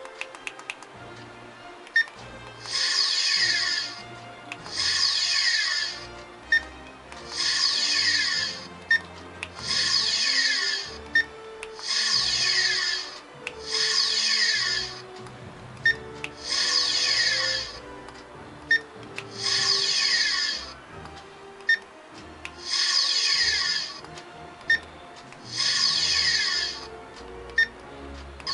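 Electronic phaser sound effects from the prop's GMProps sound board: about ten short chirps with a falling pitch, every two to three seconds, each just after the click of a button press. Each press steps up the phaser's power setting, lighting another LED in its bar.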